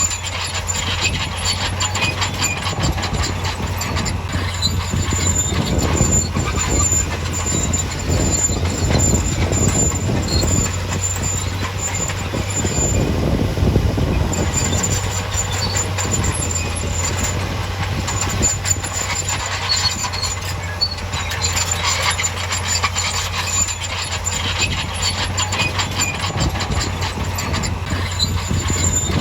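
Crawler bulldozer working: a steady diesel engine drone under dense clanking of the steel tracks, with a thin high track squeal that comes and goes.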